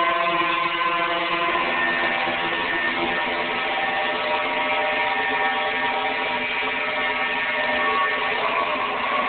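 Dense electronic drone from a synthesizer, many sustained tones layered at once. About one and a half seconds in, it shifts to a different cluster of tones and carries on steadily.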